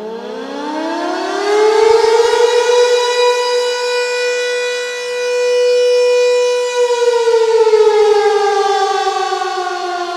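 Civil defense warning siren sounding an emergency alert: it winds up in pitch over about two seconds, holds a steady wail, then starts winding down about seven seconds in.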